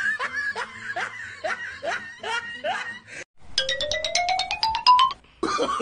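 Edited-in comedy sound effects: first a string of about seven short, rising laugh-like sounds, then, after a brief break, one rising tone with rapid ticking over it for about a second and a half. Voices start just before the end.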